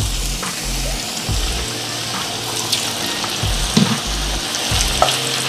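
Raw potato strips frying in hot oil in a cast-iron skillet: a steady sizzle with bubbling and scattered small pops, just after the batch has gone in. Background music with a bass line plays underneath.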